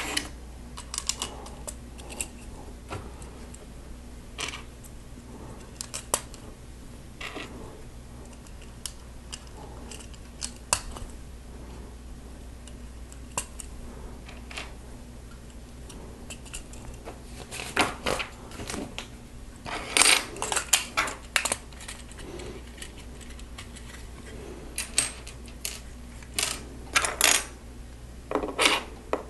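Plastic Lego bricks clicking and clattering as they are handled and pressed onto a model, in scattered sharp clicks that come in busier bursts about two-thirds of the way through and again near the end.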